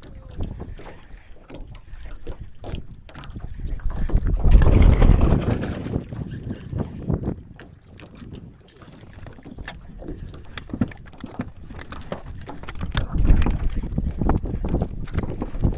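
Wind buffeting the microphone in two strong gusts, with scattered knocks and clatters throughout.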